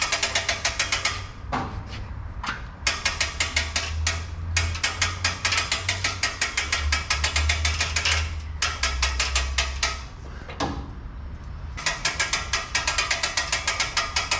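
Rapid, even clicking of a hand ratchet mechanism being worked, about ten clicks a second, in long runs with several short breaks and a quieter stretch about ten to twelve seconds in.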